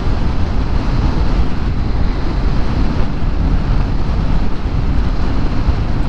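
Steady rush of wind over a riding microphone with road and engine noise beneath, from a Honda Forza 350 scooter moving at speed.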